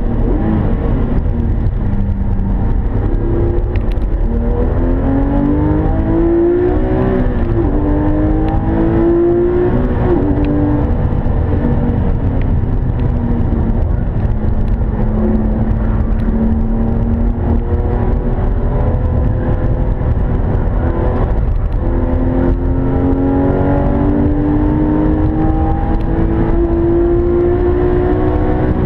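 The Porsche 911 GT3 RS 4.0's naturally aspirated 4.0-litre flat-six is heard from inside the cabin under track driving. Its note climbs and drops back at upshifts in the first third, holds fairly steady in the middle, then climbs again near the end. A constant low road and wind rumble runs underneath.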